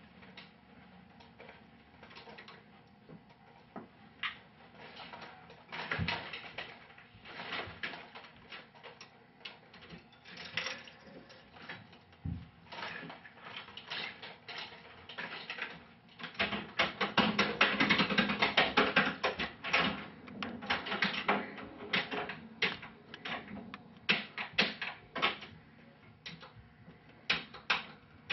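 Tales from the Crypt pinball machine in play: irregular clacks and knocks from its flippers and ball, thickening into a rapid flurry about two-thirds of the way through.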